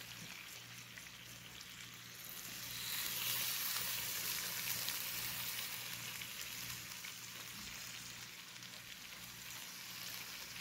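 Catfish curry sizzling in its oil in the pot, a steady high hiss that swells about two seconds in and then slowly eases, with a faint low hum underneath.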